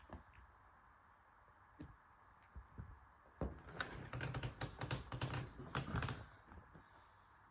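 A kitten tussling with a belt: a dense run of rapid clicking and rattling, like a buckle and claws knocking about, lasting about three seconds from around the middle, after a few scattered clicks.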